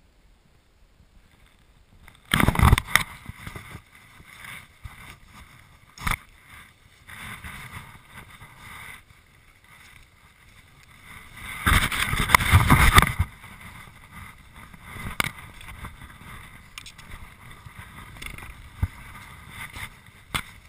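Wind and movement noise on a helmet-mounted action camera's microphone as a skier moves over snow. There are two loud rushing spells, a short one a couple of seconds in and a longer one in the middle, with a few sharp knocks between them.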